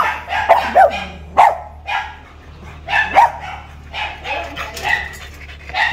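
Pug barking repeatedly: about ten short, sharp barks in quick, uneven runs.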